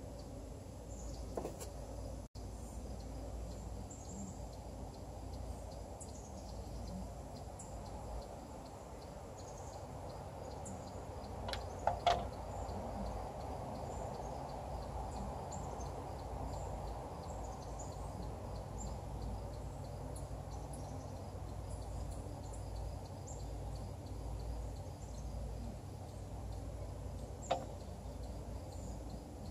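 Quiet outdoor background: a steady low rumble with faint, evenly repeating high chirping throughout. Three brief clicks cut through it, one near the start, a quick double about twelve seconds in that is the loudest, and one near the end.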